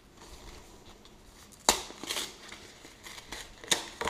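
A cardboard chocolate-bar box being pulled open and its paper-and-foil-wrapped bar slid out. Two sharp cardboard snaps, one a little before halfway and one near the end, with paper crinkling between them.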